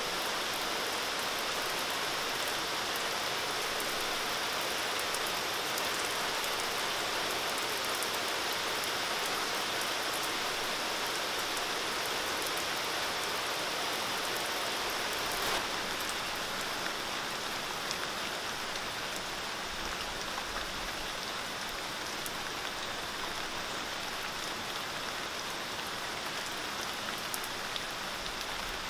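Steady rain falling, with individual drops ticking close by. A single brief knock about halfway through.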